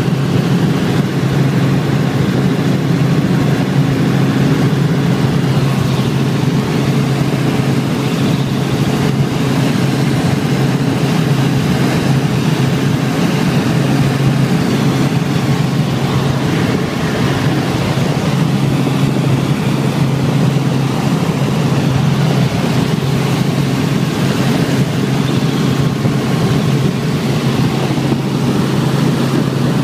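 A helicopter in steady cruise flight, heard from inside its own cabin: a constant low engine-and-rotor hum over a steady rushing noise.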